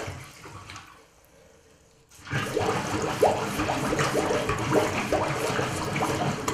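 Water sloshing and gurgling in a bathroom basin as a small cup plunger is pumped over the drain, with the overflow covered by a wet rag, to clear a blocked waste pipe. The sloshing fades out in the first second, pauses briefly, then starts again at about two seconds in and keeps going.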